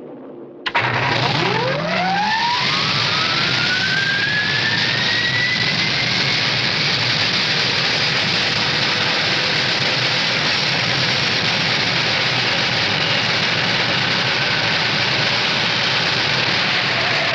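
Cartoon rocket thruster sound effect: it fires up abruptly, a whistle rises in pitch over several seconds, then it settles into a steady, unbroken roar of thrust.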